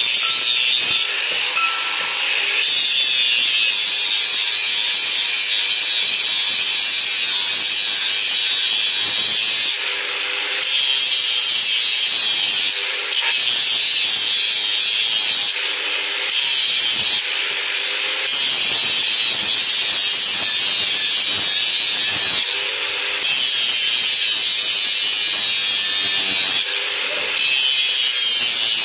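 Electric angle grinder running with its disc biting into the edge of a flat steel blade: a loud, steady high-pitched grinding, its sound changing briefly every few seconds as the disc eases off and bites again.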